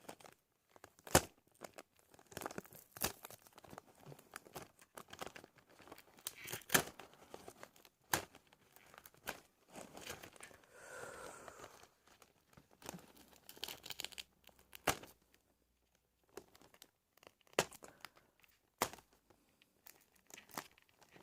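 Faint, scattered clicking, crackling and tearing from a toy ornithopter's polystyrene foam body and small plastic parts being handled and pulled apart by hand.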